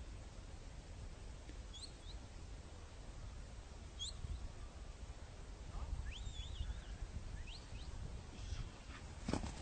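Faint, high bird chirps, a few short rising calls and one warbling call, over a low rumble. A sharp knock comes near the end and is the loudest sound.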